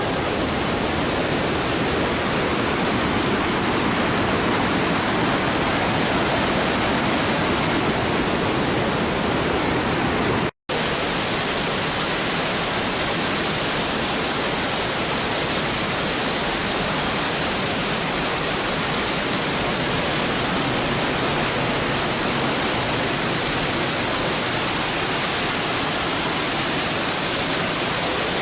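Waterfall water pouring in a steady, loud rush, which breaks off for an instant about ten seconds in.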